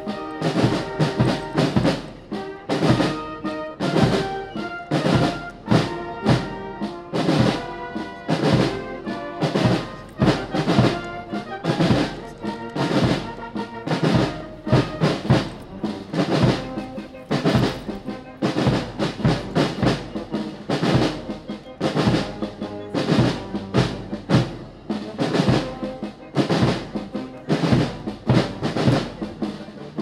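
Military band of brass and drums playing a march: a brass melody over a steady drum beat of about two strokes a second.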